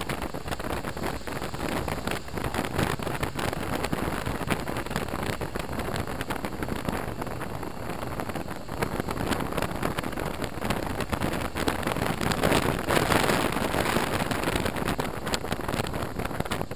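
Wind rushing over a helmet-mounted camera on a moving BMW R1200RT motorcycle, a steady dense rush with the bike's running noise underneath, swelling a little about twelve seconds in.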